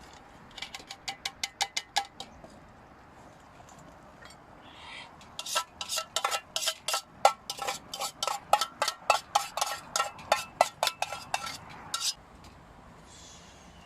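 Metal spatula knocking and scraping against a pan, scraping out cooked fried tofu: a short run of ringing clinks, a pause, then a longer run of about four clinks a second.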